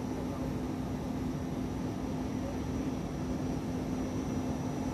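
Steady hum and air hiss of an Embraer Legacy business jet's cockpit, with one constant low tone running through it.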